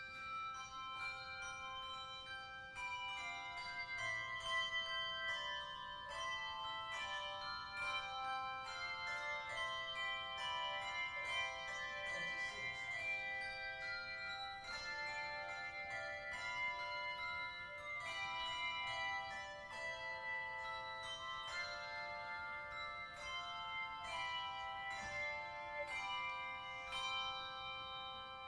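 Handbell choir playing a piece of music: many bells struck together in chords under a moving melody, each note ringing on.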